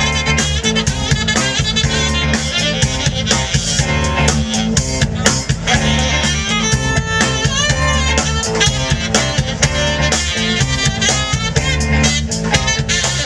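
Live blues band playing an instrumental passage: drum kit, bass and guitar keep a steady groove under a tenor saxophone solo.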